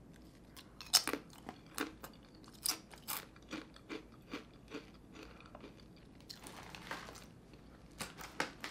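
Someone biting and chewing crunchy Koikeya Don Tacos corn tortilla chips: a string of short, sharp crunches spread over several seconds, fairly faint.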